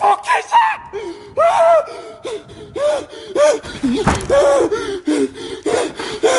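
A frightened man gasping and panting in short, high voiced gasps, several a second, with a bump about four seconds in.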